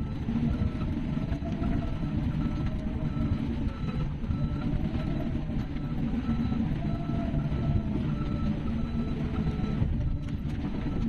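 Heavy construction machine running steadily, with a short high beep repeating about twice a second and a whine that rises and falls over the engine noise.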